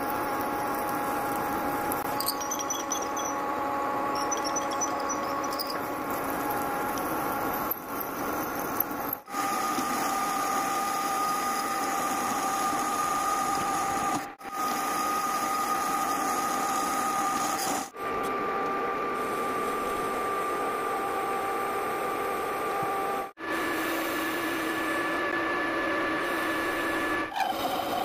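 Metal lathe running while cutting into the end of a steel propeller shaft, drilling, boring and turning: a steady machine whine with a few held tones over a hiss of cutting. The sound breaks off briefly a few times and the tones shift in pitch after each break.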